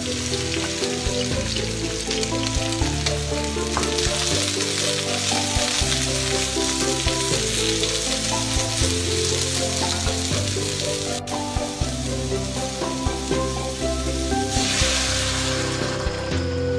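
Sliced red peppers and onions sizzling in hot oil in a wok as they are stirred with a spatula. Near the end, broth is poured in with a brief rushing splash.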